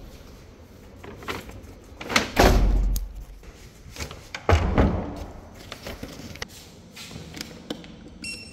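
Doors being opened and shut: two heavy thuds, about two seconds and four and a half seconds in, with smaller clicks between. A short electronic beep sounds near the end.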